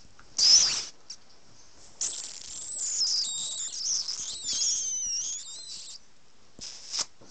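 Pug puppy yipping once sharply about half a second in, then whining and squealing in a run of high-pitched cries that bend up and down for about four seconds, with a brief squeak near the end.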